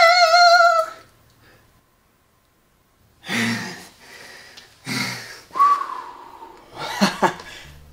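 A man's voice holding a high sung 'ooh' note with vibrato, which ends about a second in. After a short silence come several heavy, breathy exhalations and a brief high tone.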